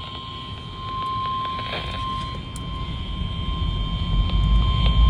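NOAA Weather Radio 1050 Hz warning alarm tone, one steady unbroken high beep that signals a new warning broadcast, here a flash flood warning. A low rumble underneath grows louder in the second half.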